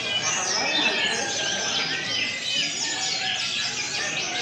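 Many caged brown-chested jungle flycatchers singing at once, a dense, unbroken chorus of overlapping high chirps, trills and quick whistled glides.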